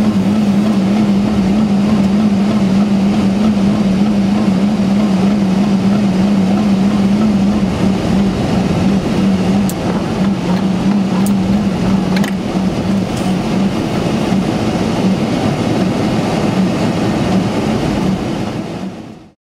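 Steady cockpit noise of a Boeing 747-400 moving on the ground after landing in rain: a constant low drone over a wash of noise, with a few faint ticks, fading out at the very end.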